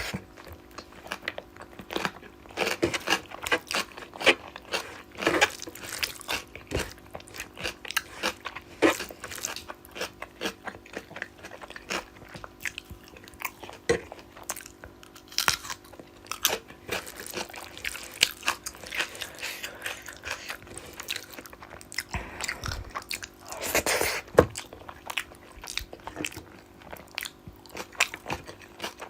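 Close-miked eating: chewing and crunching of fried food and rice, with many quick, irregular mouth clicks and bites.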